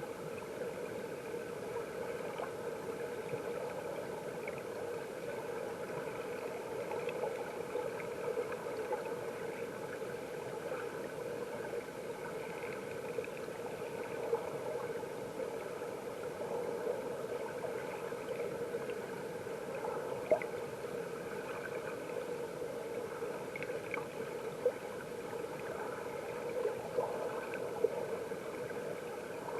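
Mountain stream water heard underwater: a steady rushing and bubbling of the current, with a few sharp ticks in the second half.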